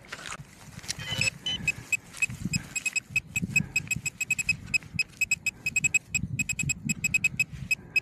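Metal detector giving rapid, short, high beeps in quick runs as the buried target is found in loosened soil, over the crumbling and scraping of soil being broken apart by hand and with a digging knife.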